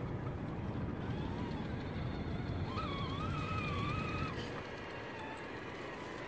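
Electric motor and drivetrain of a 1:10-scale RC crawler truck whining as it crawls through mud, the pitch wavering up and down with the throttle and loudest around three to four seconds in. A low rumble underneath drops away a little after four seconds.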